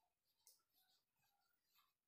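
Near silence, with a couple of very faint clicks.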